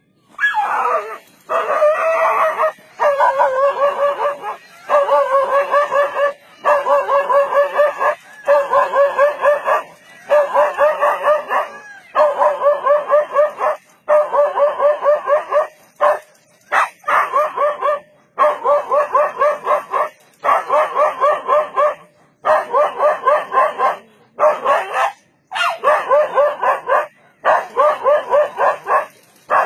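Stray dog barking defensively at a leopard in rapid runs of one to two seconds, with short pauses between the runs.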